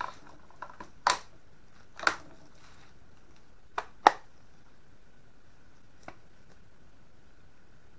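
Sharp metallic clacks from handling a Brazilian M954 Mauser bolt-action rifle: two loud ones about a second apart as the bolt is worked, then two more close together near four seconds in as the rifle is turned over, and a faint tick near six seconds.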